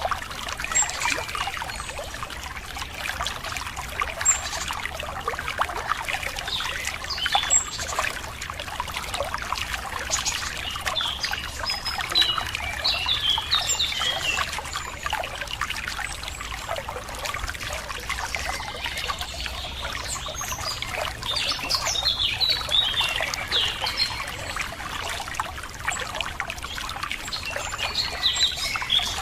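Running water trickling and splashing steadily, with small songbirds chirping over it in short clusters of quick notes, most busily about halfway through and again near the end.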